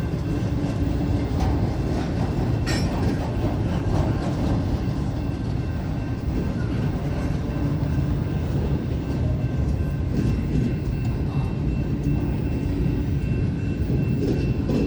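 Freight train rolling slowly past a grade crossing: a steady rumble of railcars going by.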